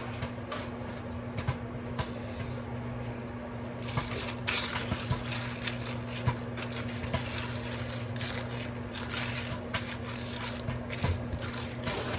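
Microwave oven running with a steady low hum, with scattered light clicks and crackles that become more frequent from about four seconds in.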